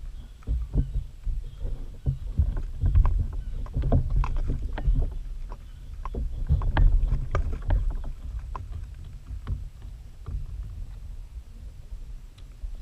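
Irregular clicks, knocks and low thumps of fishing gear being handled against a plastic Pelican Bass Raider fishing kayak.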